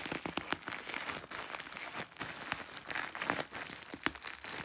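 Thin plastic packaging of a pack of sanitary pads crinkling and crackling irregularly as hands work the pack open.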